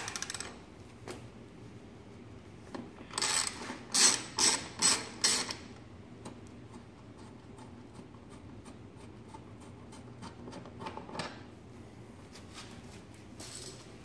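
Socket ratchet wrench clicking in a quick run of strokes as a lower subframe bolt is loosened, with fainter ratchet clicks later on.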